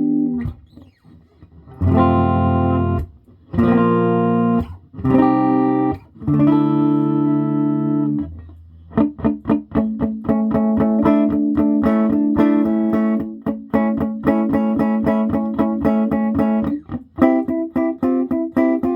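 Electric guitar played through a 1967 Ampeg Portaflex SB12 tube amplifier on its instrument input at about half volume, the amp freshly fitted with a new tube: several ringing chords about a second each, then a fast run of picked notes from about nine seconds in.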